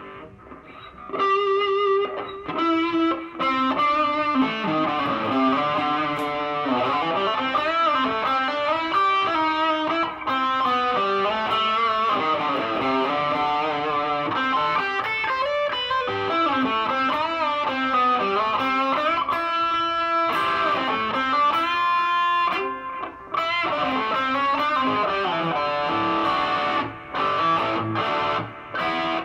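Electric guitar played through an Artec G10x 10-watt practice amp: a continuous run of melodic single-note lines and chords with long sustain, pausing briefly a few times.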